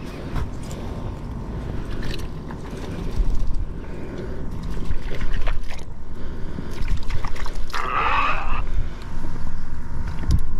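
Cast net being hauled out of shallow water, water streaming and dripping from the mesh, with wind buffeting the microphone. A brief louder splash comes about eight seconds in.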